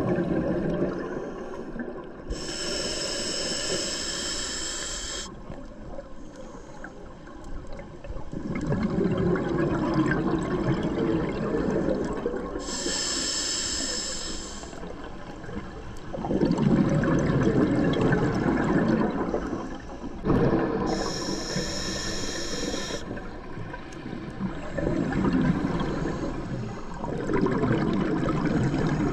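A scuba diver breathing through an open-circuit regulator: three inhalations hiss through the demand valve with a faint whistling tone, each followed by a longer gurgling rush of exhaled bubbles.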